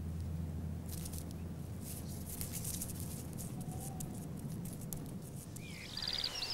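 Light patter and crackle of a dormouse moving through dry twigs, over a steady low hum. Near the end, songbirds start chirping and singing.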